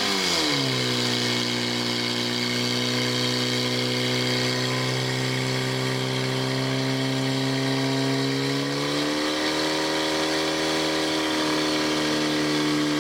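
Fire-sport portable fire pump engine held at steady high revs, driving water through the hose lines to the nozzles. Its pitch steps up slightly about nine seconds in.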